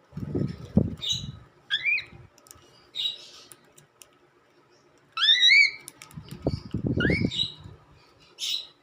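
Cockatiel calling: several short rising whistles, the loudest about five seconds in, between harsh chirps. Two bouts of low rumbling come near the start and again about six to seven seconds in.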